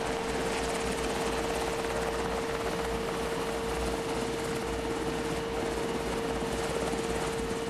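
HH-60G Pave Hawk helicopter running as it comes in and touches down: a steady noisy rumble with one steady high whine running through it.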